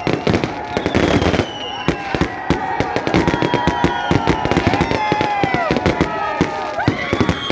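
A dense barrage of fireworks: rapid overlapping bangs and crackles, with many whistling tones sliding up and down in pitch.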